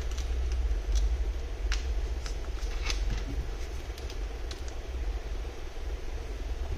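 Scattered small clicks and crackles as an iPad Air 2's glued-in battery is pried up with a plastic pry tool and lifted out, over a steady low hum.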